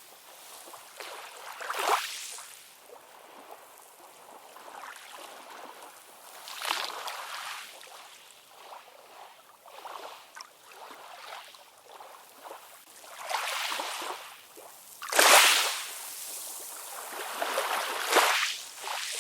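Ocean waves washing in and drawing back, a series of rushing swells of water noise with quieter lapping between them; the biggest wave breaks about fifteen seconds in.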